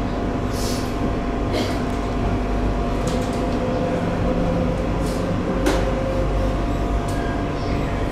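Madrid Metro Line 10 train at the station, humming steadily, with several short hisses and a sharp click about halfway through.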